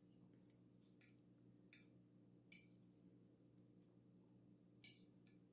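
Near silence over a steady low hum, with a few faint, short clicks and smacks of eating, the loudest about halfway through and near the end.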